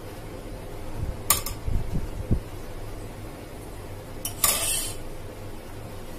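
Metal serving utensil clinking against a ceramic plate and pot while cooked trotter pieces are laid onto rice: a sharp clink a little over a second in, a few soft low knocks, and a short clatter about four and a half seconds in.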